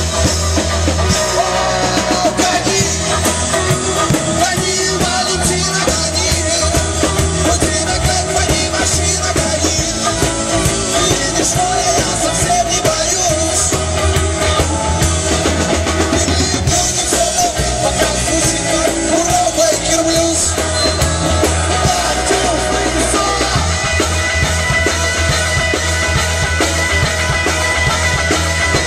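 Live rock-and-roll blues band playing: amplified harmonica over electric guitars, bass guitar and drum kit.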